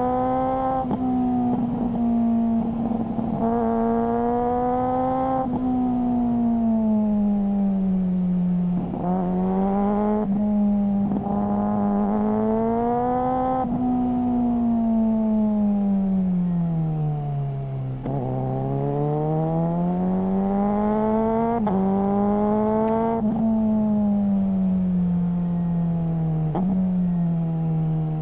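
Suzuki GSR600's inline-four engine through a GPR Ghost aftermarket exhaust, pulling through the gears. The pitch climbs steadily and then drops abruptly at each quickshifted upshift. About two-thirds of the way through it sags to a low point as the bike slows, then climbs again.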